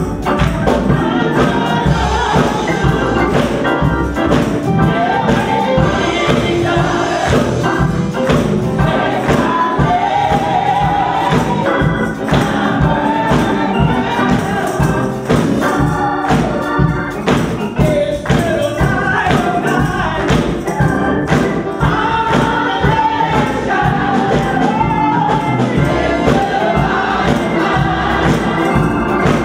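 Church choir singing a gospel song, with hand claps and percussion keeping a steady beat.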